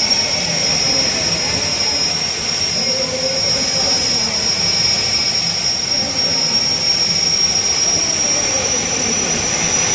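Jet-powered drag cars' turbine engines running at the starting line: a steady roar topped by a constant high whine that rises slightly near the end.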